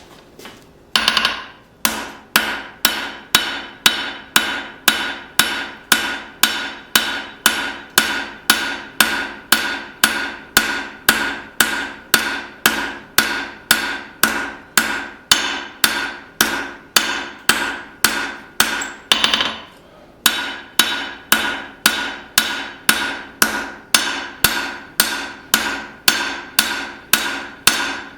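Hammer blows on hot leaf-spring steel over an anvil, forging in a knife's bevels: a steady rhythm of about two strikes a second, each ringing. A brief pause breaks the rhythm about two-thirds of the way through.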